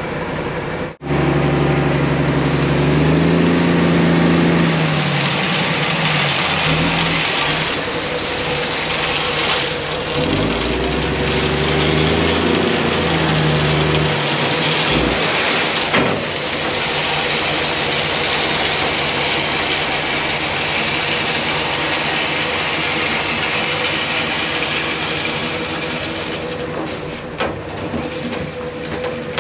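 Ford L9000 dump truck's diesel engine pulling while the truck creeps along tailgate-spreading gravel. The engine climbs and drops in pitch twice in the first half over a steady rushing hiss.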